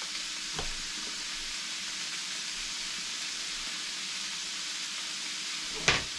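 Diced pork sizzling steadily as it browns in a frying pan, with a single sharp knock near the end.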